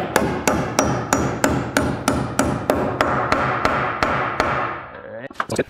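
Hand hammer driving a nail through a wooden sub fascia board into a rafter tail: a quick steady run of blows, about three to four a second, that tails off and stops near the end.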